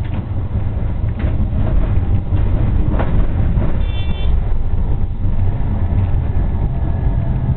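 Tram running, heard from inside the driver's cab: a steady low rumble with a few sharp knocks as the wheels pass over track joints and a road crossing, and a brief high signal tone about four seconds in.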